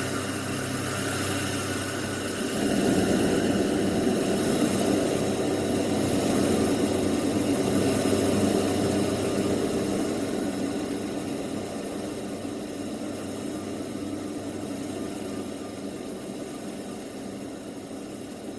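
Dark-ambient noise drone: a dense, steady rumbling noise wall that thickens about two and a half seconds in, then slowly fades.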